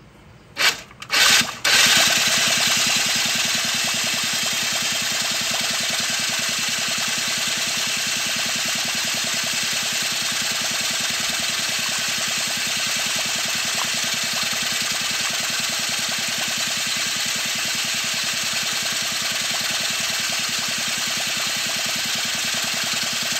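Electric starter cranking a Polaris Scrambler 50's engine with the spark plug removed. After two short bumps it spins the engine steadily for over twenty seconds without firing. It is turning the engine over to pump out the oil and fuel that filled the crankcase and hydrolocked it.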